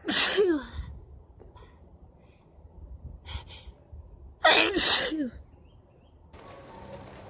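A woman sneezing twice, loud and short, about four seconds apart, each sneeze ending in a falling voice: allergy sneezes.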